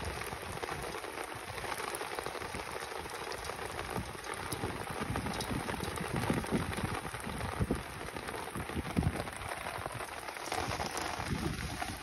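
Steady rain falling on the open water of a flooded rice paddy, a continuous hiss of many small drops.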